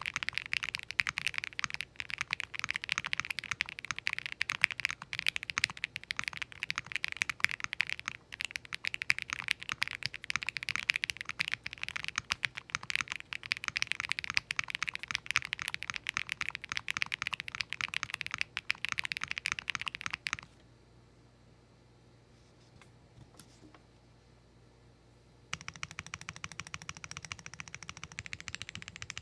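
Fast, continuous typing on a mechanical keyboard with Akko x Monsgeek Green Fog heavy linear switches (60 g actuation, factory-lubed) in a top-mount case with only case foam. The typing stops for a few seconds about two-thirds of the way through, then resumes more quietly.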